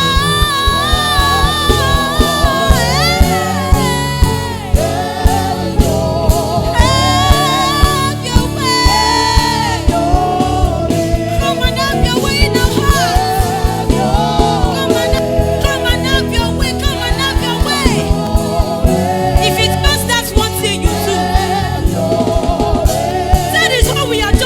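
Gospel worship song: singers with a backing band over a steady drum beat.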